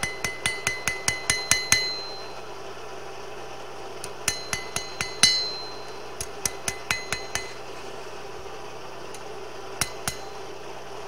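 Small flat hammer planishing a spring-steel blade on an anvil: runs of quick, light, ringing blows, about five a second, smoothing the surface rather than changing its shape. Short pauses break the runs, and a few single taps come near the end.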